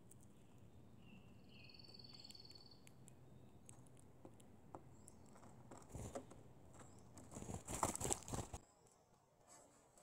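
A few faint, high whistled bird calls in the first seconds. Then, from about six seconds in, a run of close fluttering, rustling and scuffing, loudest around eight seconds: a black-headed grosbeak flapping off the seed-covered deck rail and birds moving in the birdseed.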